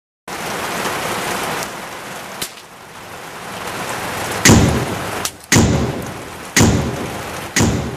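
A steady rain-like hiss, then four heavy booming hits about a second apart, each trailing off like thunder.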